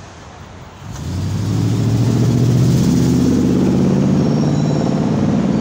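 1967 Chevrolet Caprice's V8 engine revved up about a second in, then running loud and steady with a low, deep note.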